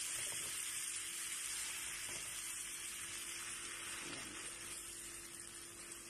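Marinated chicken pieces sizzling in a hot, oiled ridged grill pan, the sizzle slowly dying down as the meat settles.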